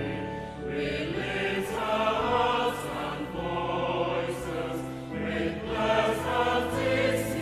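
A choir singing over musical accompaniment, in a slow piece of held chords that change every second or two.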